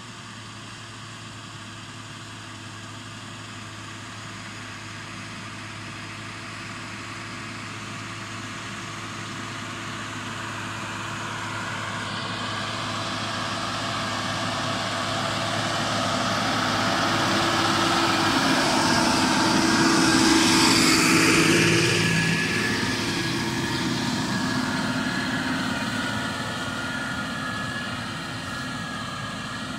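Case 5140 tractor's diesel engine running under load while pulling a plough. It grows steadily louder as the tractor approaches, is loudest as it passes close about twenty seconds in, then fades as it moves away.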